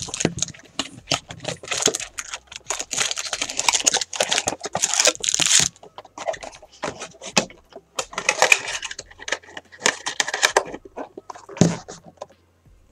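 A cardboard trading-card box being pulled open and its stack of card packs slid out and set down: a run of crackling, tearing and scraping, loudest for a few seconds in the first half and again about eight seconds in.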